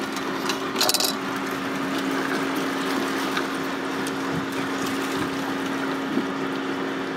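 Steady hum of the boat's motor with water rushing and splashing along the hull of the moving catamaran. A short rattle of clicks comes about a second in.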